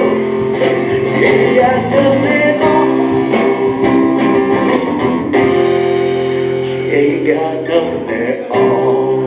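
Live band music: strummed guitar over bass and drums.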